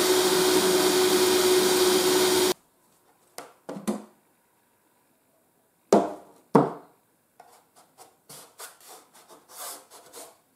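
Small handheld drill running at high speed with a steady whine, boring through hardened epoxy microsphere filler in a foam edge, then stopping suddenly. A few light knocks and scraping taps of foam parts being handled follow.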